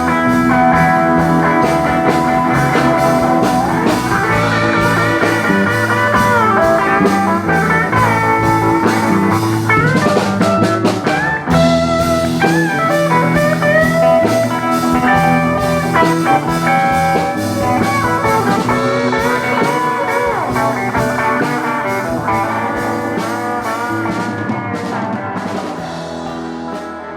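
A live blues-rock band playing, with a guitar lead of wavering, bent notes over bass and drums. The music fades down over the last few seconds.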